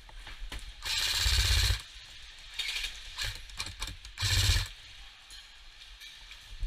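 Airsoft gun firing on full auto in rapid bursts: one of about a second about a second in, a short one near three seconds, and another half-second burst past four seconds, with scattered clicks between.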